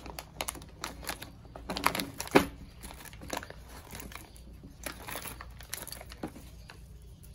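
Plastic hardware bag crinkling and rustling irregularly as a screw is fished out of it, with small clicks of the parts, loudest a little over two seconds in.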